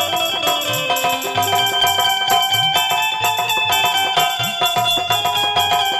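Folk stage music: a hand drum whose low strokes bend upward in pitch, jingles on a fast, even beat, and sustained melody lines over them.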